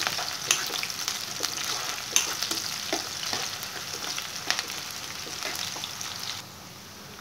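Sliced onions frying in hot oil in a pan, sizzling steadily while a steel spoon stirs them, with light clicks and scrapes of the spoon against the pan. The onions are still raw-white, at the start of frying down to brown for a masala base. The sizzle drops away near the end.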